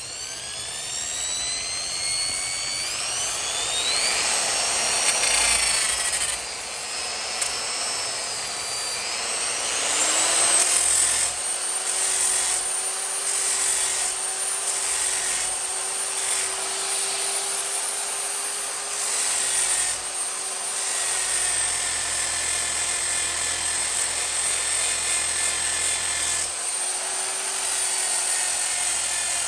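Variable-speed angle grinder with a hook-and-loop pad and 100-grit sanding disc spinning up with a rising whine. From about ten seconds in it runs steadily with a dense grinding hiss as it sands the edge of an axe.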